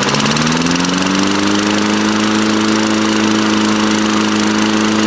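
Lawn-Boy mower's Tecumseh engine, just started, picks up speed over the first second or two, then runs steadily at its set speed.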